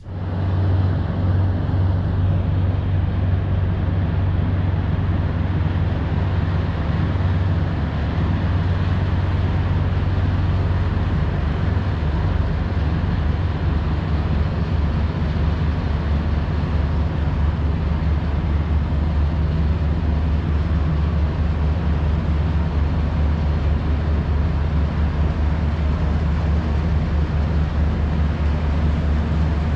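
Marine diesel engines running with a loud, low steady drone that turns rougher and pulsing about ten seconds in, as the bunkering tanker pulls away from the ship's side after refuelling.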